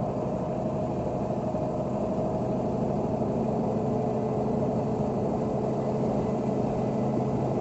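Heavy road-construction machinery's diesel engine running steadily.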